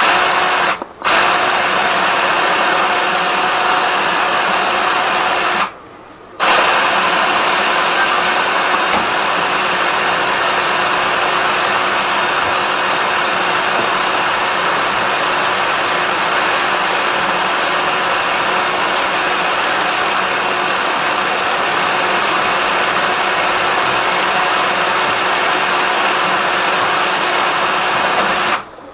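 Drill driving a Flexshaft drain-cleaning cable that spins inside a clogged sink drain pipe. The motor runs steadily with a whine. It stops briefly about a second in and again around six seconds in, and cuts off near the end.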